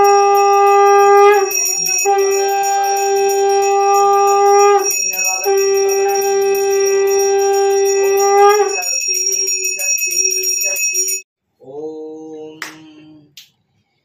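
A conch shell (shankha) blown in three long blasts, then shorter ones, over a brass hand bell rung rapidly and without a break. Near the end a shorter, lower-pitched blast is followed by a few sharp finger snaps.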